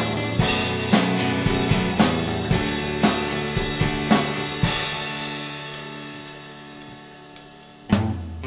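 Instrumental passage of an indie rock song: a drum kit keeps a steady beat, about one hit a second, over sustained chords. About five seconds in the drums drop out and the music thins and grows quieter, then the full band comes back in with a loud hit near the end.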